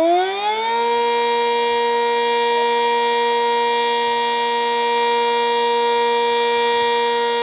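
Sentry 10V single-tone outdoor warning siren sounding a test: its pitch finishes rising in about the first second of wind-up, then holds one loud, steady tone.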